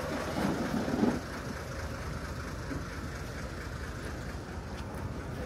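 An engine running steadily at low revs, a low even rumble, with some indistinct voices in the first second.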